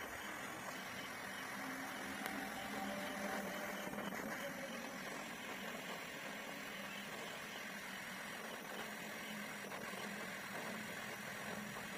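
Small gas blow torch with a brass nozzle burning steadily, its flame giving a constant hiss, with a faint low hum underneath.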